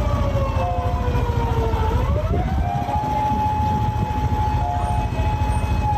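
Police car siren wailing slowly: the pitch slides down, sweeps back up about two seconds in and then holds steady, over a steady low background rumble.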